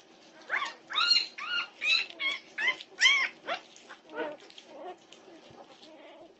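A litter of young Norwegian Buhund puppies squealing and whining: a quick run of short, high cries that each rise and fall in pitch, about eight in the first three and a half seconds, then a few fainter ones. Heard through a home security camera's microphone.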